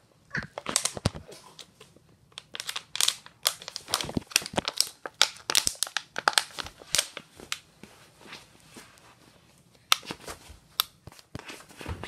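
Thin plastic water bottle crinkling and crackling irregularly as a baby squeezes and mouths it, with a short lull a little past halfway.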